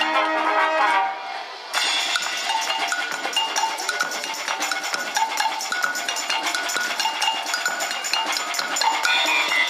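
School wind band playing. A full held chord breaks off about a second in, and then a brisk passage of dense percussion strikes with short high notes over it.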